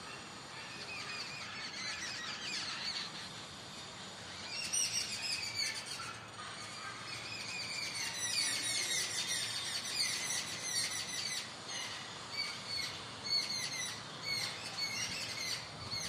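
Many small birds chirping at once, a busy chorus of short high chirps that thickens and grows louder about four seconds in.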